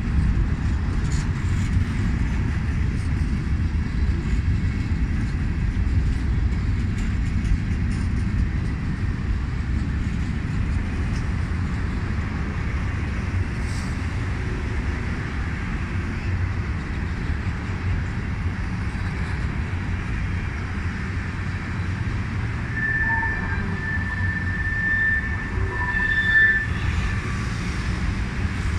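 Empty freight cars rolling past: a steady rumble and rattle of steel wheels on rail. Near the end a thin, high wheel squeal sounds for a few seconds.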